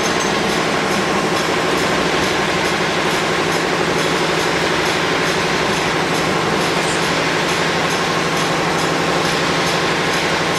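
Spiral paper tube winding machine running steadily at speed, a continuous mechanical rumble and rattle with a light ticking a couple of times a second.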